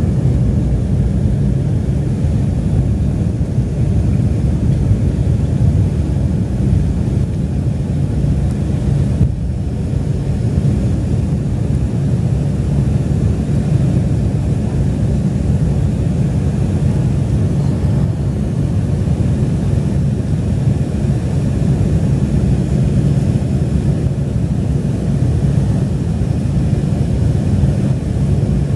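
Embraer 190's GE CF34-10E turbofan engines at takeoff power, heard inside the cabin as a steady, deep rumble through the end of the takeoff roll and the climb-out.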